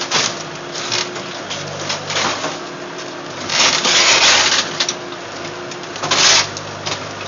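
Wooden garage structure being broken down: timber cracking and crunching in bursts, the longest about halfway and a shorter one near the end, over a steady low hum.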